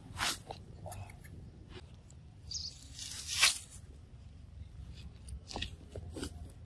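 A macaque biting and chewing soft mango, with irregular wet crunches and smacks; the loudest crunch comes about three and a half seconds in.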